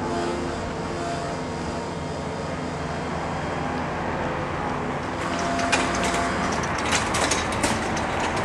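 Class 170 Turbostar diesel multiple unit approaching, its underfloor diesel engines droning steadily. From about halfway through, sharp clicks and clatter of the wheels on the rails join in and it grows slightly louder as the train nears.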